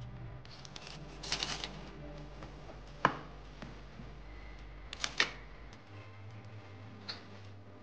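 Knife blade scraping and clicking against the rim of a pie dish while trimming a pastry lid: a short stretch of scraping a little over a second in, a sharp click about three seconds in, and two more clicks close together about five seconds in.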